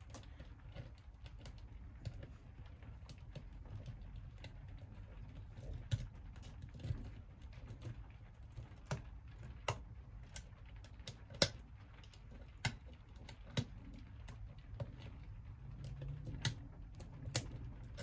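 Lock pick clicking and scraping against the pins in the keyway of a solid brass Master Lock 607 padlock held under tension: a string of irregular light clicks, the sharpest a little past halfway.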